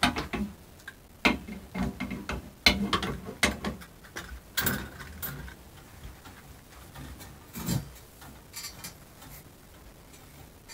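Metal clicks and clanks from a Merle adjustable corner clamp being handled on its screw: a run of irregular sharp knocks over the first five seconds or so, then a few fainter ticks.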